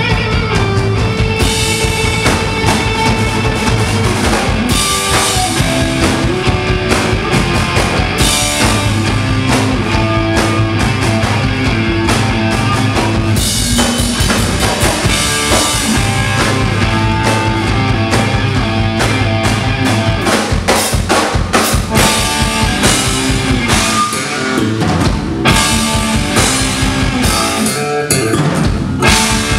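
Live instrumental rock played by a trio of electric guitar, bass and drum kit, with sustained bass notes and busy drumming under the guitar melody. The low bass drops out briefly twice near the end.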